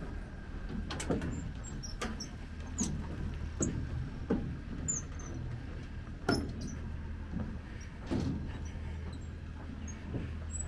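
Footsteps walking along a railway bridge, about one step a second, with some steps louder than others, over a steady low hum.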